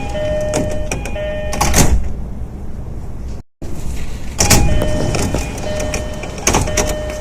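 E233-series train door chime: the electronic chime plays its repeating pattern of a few tones, broken by clicks and door-mechanism knocks, with a loud clunk about two seconds in. After an abrupt cut, a second door's chime plays again over more knocks.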